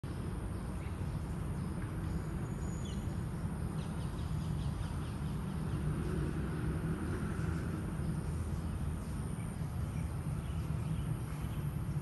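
Outdoor ambience: a steady low rumble, with a few faint bird chirps about three and four seconds in.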